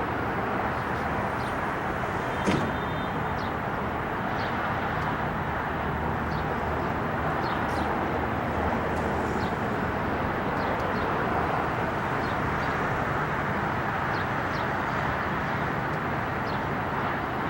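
Boeing 777 jet engines running with a steady, even roar through the takeoff, with short high chirps scattered over it and one sharp click about two and a half seconds in.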